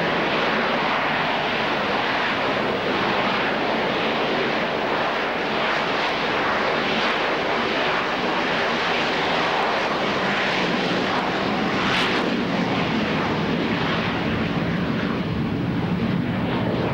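Harrier jump jet's Rolls-Royce Pegasus jet engine: a loud, steady jet roar as the aircraft hovers and manoeuvres, with the low rumble growing stronger near the end.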